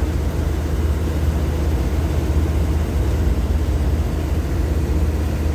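Diesel railcar train standing at the platform with its engines running: a steady low drone under an even hiss.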